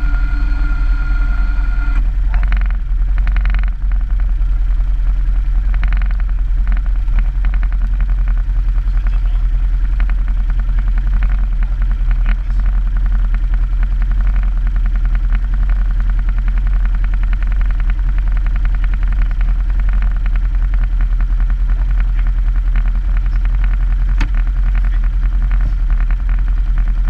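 Quad bike engine idling steadily: a low, even hum with a fast, regular beat.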